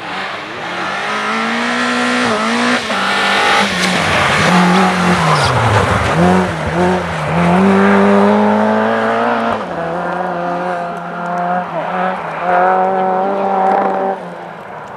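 Rally car engine running at high revs, its pitch dipping and climbing repeatedly with throttle lifts and gear changes, then holding steadier and high in the later part.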